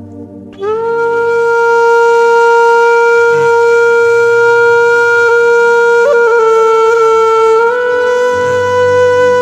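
Slow music: a wind instrument, flute-like, holds one long note over a low steady drone, stepping slightly in pitch about six seconds in and again near eight seconds.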